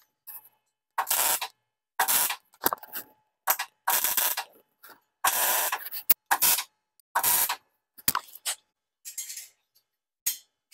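MIG welder tack-welding stainless steel: about a dozen short bursts of welding arc noise, each well under a second, with silence between them.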